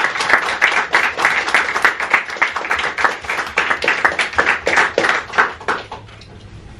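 A small group applauding, individual hand claps distinct, dying away near the end.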